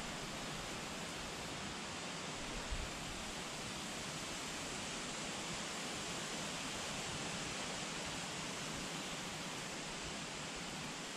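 Steady rush of flowing creek water, an even hiss with no change in level.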